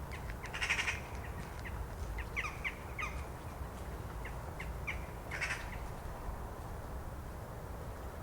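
A roosting flock of jackdaws calling at night: two louder harsh caws, one near the start and one about five seconds in, with scattered short chattering calls between them over a steady low rumble.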